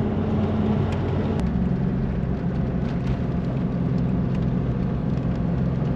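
Toyota LandCruiser 70-series towing a caravan: steady engine and road noise while driving. The engine note changes about a second and a half in.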